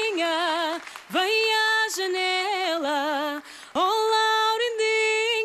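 A woman singing a Portuguese folk song into a microphone, holding notes with vibrato, her phrases broken by short breaths about one second and three and a half seconds in.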